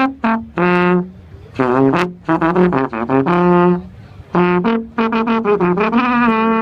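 Brass band playing a tune: a run of short, separate brass notes over a lower bass line, ending on a held note with vibrato.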